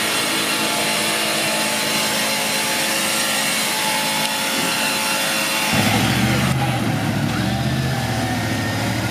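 Off-road buggy working through deep mud with a winch line rigged, giving a steady high-pitched mechanical whine. About six seconds in it gives way abruptly to a lower engine note.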